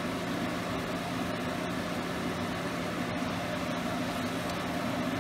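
Steady fan-like hum and hiss with no change, with a few faint soft taps as a wooden spatula stirs prawn masala in a steel pot.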